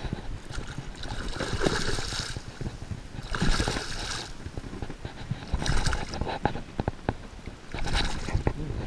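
A hooked fish thrashing at the water's surface as it is landed, splashing in about four bursts, with small clicks and knocks in between.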